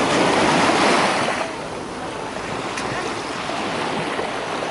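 Sea waves washing and surging, with wind buffeting the microphone. The wash is louder for about the first second and a half, then eases off.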